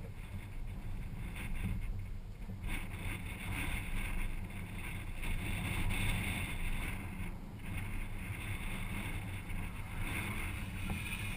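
BMW E30 drift car's engine idling with a steady low rumble, under wind noise on the microphone; a hiss grows louder about three seconds in.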